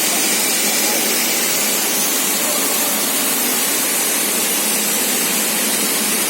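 Rubber extrusion and microwave-curing production line running, giving off a loud, steady hiss.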